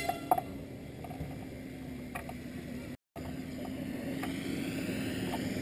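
Land Rover Defender's engine running as it drives across a grass field toward the listener, a steady engine note growing louder as it approaches. The sound drops out for a moment about halfway.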